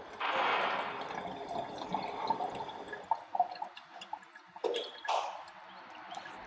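Whipped cream being spread on sponge-cake layers with a spatula: soft, wet scraping and squishing with a few light clicks. It is loudest in the first three seconds, with another short burst near the end.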